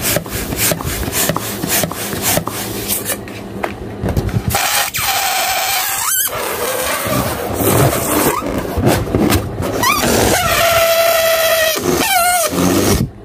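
Hands rubbing an inflated latex balloon in quick repeated strokes, then air let out through its pinched, stretched neck in long squeals that hold or glide up and down in pitch. The squealing cuts off suddenly near the end.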